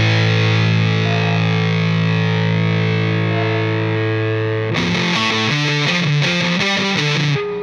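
Rock music with heavily distorted electric guitar. A chord is held steady, then about two-thirds of the way through it breaks into a choppy riff of short, repeated notes.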